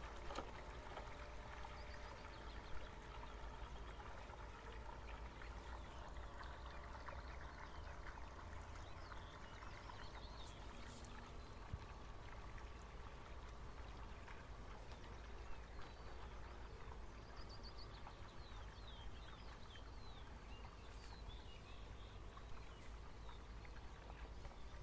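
Quiet lakeside ambience: a low steady rumble under a faint outdoor hiss, with a few small bird chirps in the second half.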